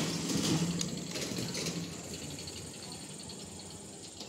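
A motor vehicle's engine running close by, loudest in the first second and then slowly fading as it moves away.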